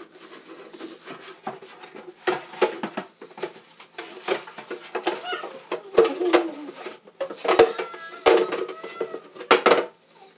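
Hard plastic knocking and clattering, with rubbing between, as a red plastic chicken waterer and other items are handled and washed at a kitchen sink. There are sharp knocks about six, seven and a half, eight and nine and a half seconds in, and a few brief squeaks about eight seconds in.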